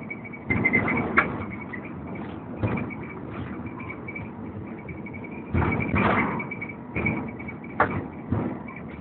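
Inside a Volvo B7TL double-decker bus on the move: continuous engine and road noise with a steady high whine, broken by irregular rattles and knocks from the body and fittings. The longest, loudest rattling comes just past the middle, with sharp single knocks about a second in and near the end.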